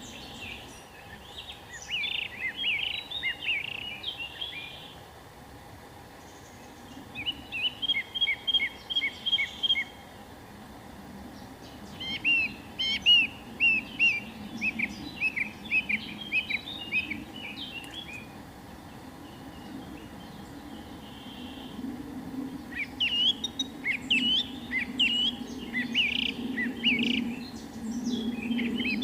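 A songbird singing in bouts of quick, high chirping notes, each bout a few seconds long with short pauses between. A steady low background rumble runs underneath.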